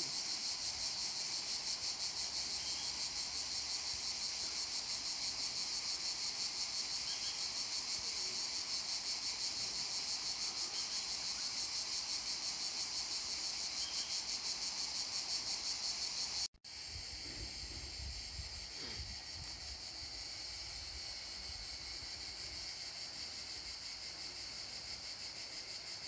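A chorus of insects shrilling steadily, a high, fast-pulsing buzz. About two-thirds of the way through it cuts off abruptly and resumes slightly quieter, now over a low rumble.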